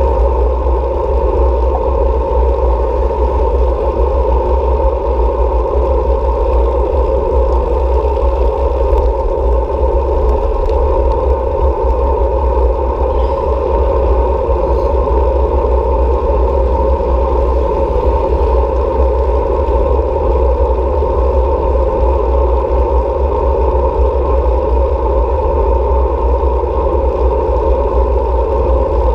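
Steady wind and road noise on a bicycle-mounted camera while cycling, with a heavy low rumble from wind buffeting the microphone.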